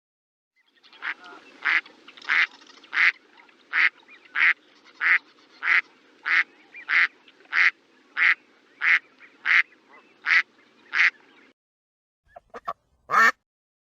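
Duck quacking in a long, evenly paced series, about three quacks every two seconds for some ten seconds. After a short pause come a few brief, sharper calls, the last one the loudest.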